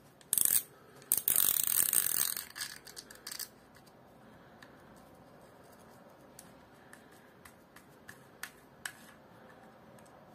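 Small reel parts clicking and rattling as the plastic star drag and its spring washers are worked on the threaded main shaft of a Haibo Origin 1 baitcasting reel. A dense rattle of clicks lasts about two seconds near the start, then single clicks follow now and then.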